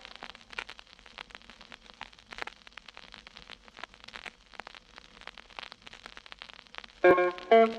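Vinyl LP surface noise in the gap between tracks: scattered crackles and pops over a faint hiss as the stylus runs through the lead-in groove. The next song's music starts abruptly about seven seconds in.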